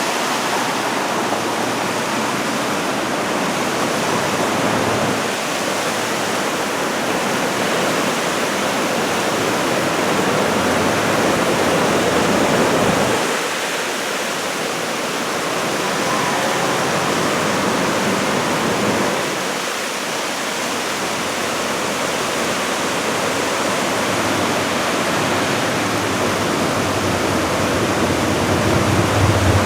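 Continuous roar of heavy surf breaking along the shore, driven by swell from an approaching typhoon; it rises and eases slowly, dipping briefly twice.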